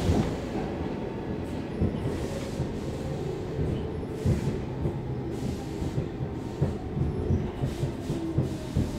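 Stockholm Metro C14 subway car running on the rails, heard from inside the car: steady wheel-and-track rumble with irregular knocks from the rails, as the train pulls into a station. A faint whine falls slowly in pitch near the end as it slows.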